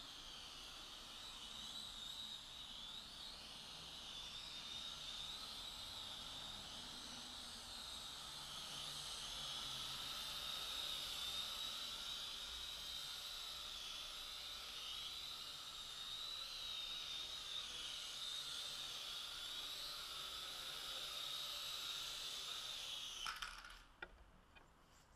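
Micro FPV quadcopter's motors and propellers whining in flight, the high pitch wavering up and down as the throttle changes. The whine cuts off abruptly with a click near the end.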